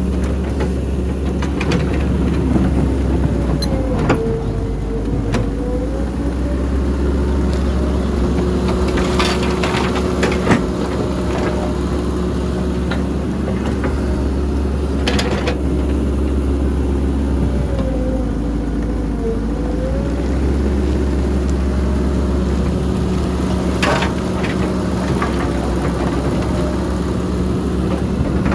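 Heavy diesel engine of an excavator working steadily, its pitch dipping briefly twice about fifteen seconds apart. A few sharp knocks are scattered through the sound.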